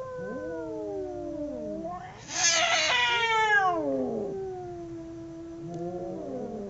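Two cats caterwauling in a fight: long, wavering howls that overlap. About two seconds in, a louder, harsh screech lasts under two seconds, then the drawn-out howls go on.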